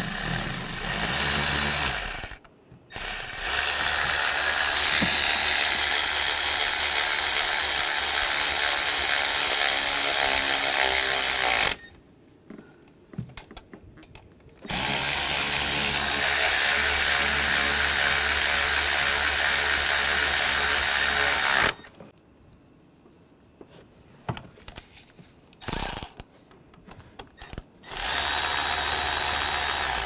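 Handheld power tool whirring in four long runs of about two, nine, seven and two seconds as bolts are run in on an engine bracket.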